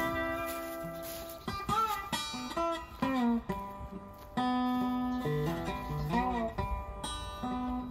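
Background music led by acoustic guitar: a run of plucked notes, some of them sliding in pitch.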